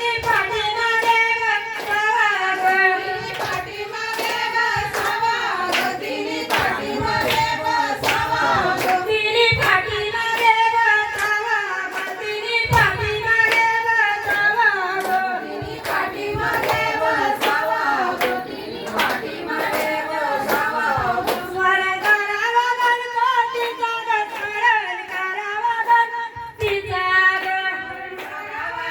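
A woman singing a traditional Marathi Ganpati devotional song to steady, rhythmic hand clapping.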